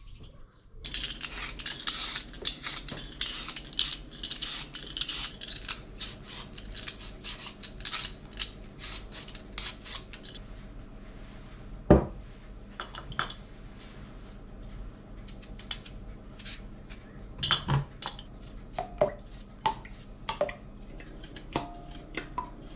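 Potatoes being peeled with a hand vegetable peeler: rapid scraping strokes for most of the first half. About halfway comes one loud knock, followed by scattered knocks and clinks as the potatoes are handled on the wooden board and put into a glass bowl of water.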